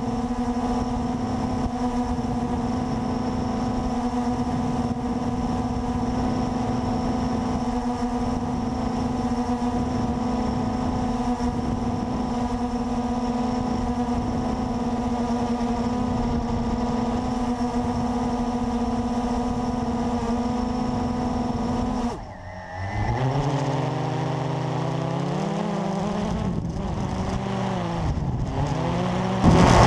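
Blade 350QX quadcopter's electric motors and propellers humming steadily, heard from its onboard camera, during a runaway flight after a malfunction. About 22 seconds in the hum drops away sharply for a moment, then returns at a lower pitch and climbs in steps. Just before the end it turns louder and rougher.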